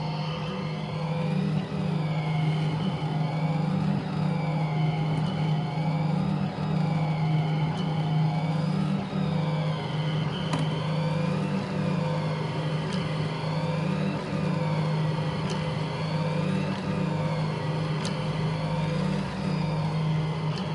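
Delta 3D printer's stepper motors whining as the print head moves, their pitch rising and falling in repeated sweeps every couple of seconds over a steady low hum.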